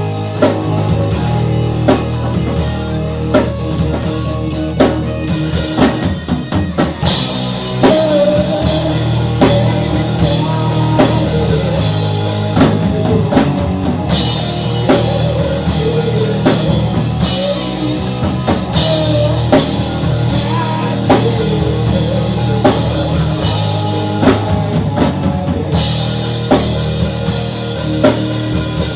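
Rock music with a drum kit and guitar, the drums keeping a steady beat.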